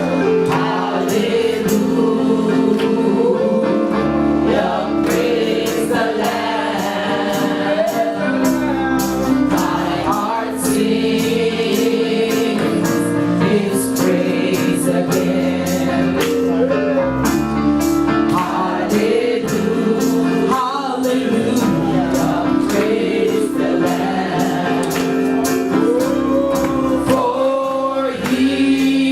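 Gospel worship song: several voices singing together over held keyboard chords and a steady drum beat.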